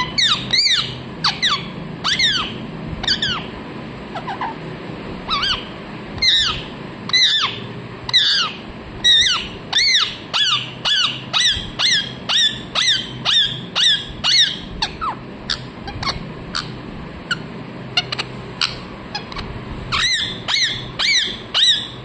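Rose-ringed parakeet calling over and over: short, high-pitched squawks that each slide down in pitch. They come in runs of about two a second, with a lull around the middle.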